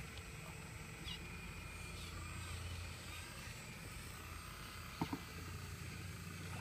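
Excavator engine running steadily, with two sharp knocks just after five seconds in.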